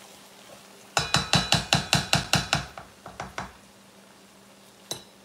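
A wooden spatula rapped on the rim of a cast iron skillet: about ten quick knocks with a slight ring, then a few slower, softer ones. A single short click comes near the end.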